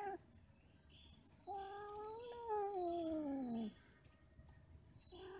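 Cats yowling during mating: a long drawn-out caterwaul about a second and a half in, holding its pitch and then sliding down. The tail of an earlier yowl is heard at the start, and another begins near the end.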